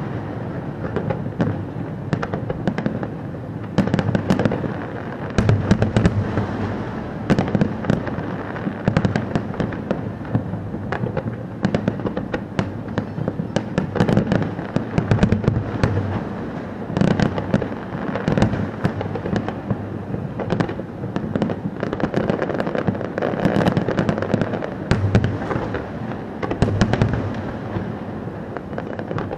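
Fireworks display in full barrage: shells bursting one after another without a break, deep booms overlapping with many sharp cracks.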